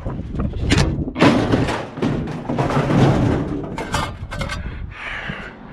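Irregular thumps, knocks and clatter of scrap being handled and moved about in a steel-decked trailer.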